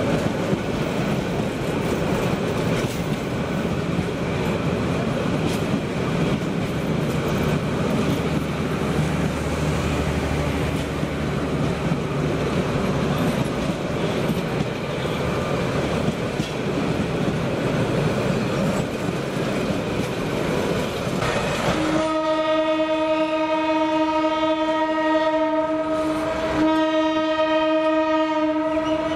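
A train running on the track, its wheels rumbling and clattering over the rails. Near the end a train horn sounds in two long blasts with a brief break between them.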